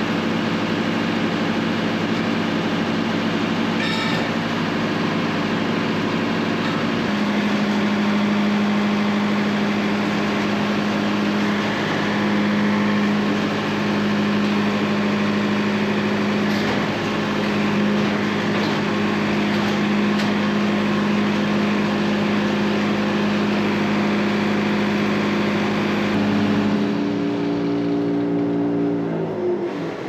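Wood-Mizer LT70 band sawmill running under load, its engine running steadily while the band blade cuts through a pine log; the engine note drops near the end as the cut finishes.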